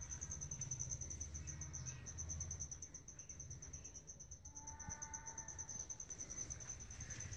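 Faint, steady, high-pitched insect trill, rapidly pulsing, over a low rumble; a brief distant call sounds about five seconds in.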